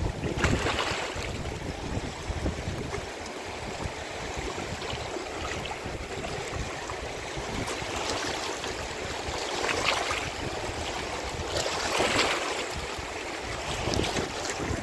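Rushing water with a few louder swells in the second half, and wind rumbling on the microphone.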